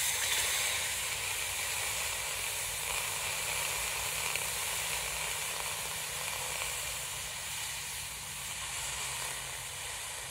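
Hot copper ingot quenched in a bucket of water: the water sizzles and hisses steadily as it boils against the metal. The sound starts suddenly as the ingot goes in and eases off a little toward the end as the ingot cools.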